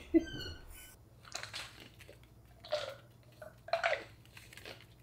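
Small Pomeranian giving a few short, husky grunting yips about a second apart, looking up at its owner.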